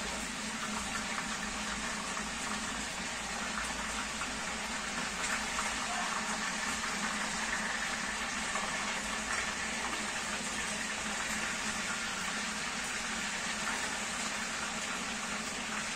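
A steady, even hiss of food cooking on a stove, without breaks.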